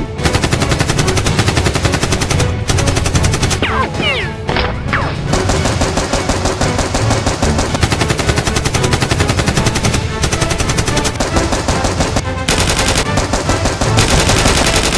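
Rapid automatic-gunfire sound effects in long bursts, with a few brief pauses between them.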